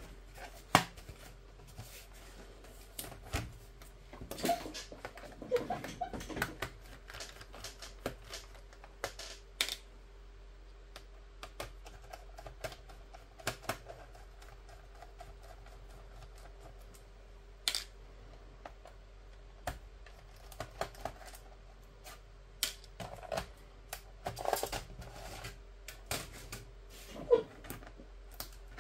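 Scattered clicks, taps and knocks of a plastic laptop case being handled, turned over and set down on a wooden table, the sharpest knocks about a second in and near the end. A faint steady hum runs underneath.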